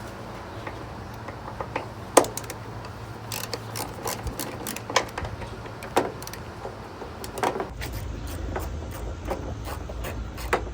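Ratchet with a T30 Torx bit working a door-hinge bolt loose, giving scattered metal clicks and clinks, the sharpest about two seconds in and more frequent near the end, over a steady low hum.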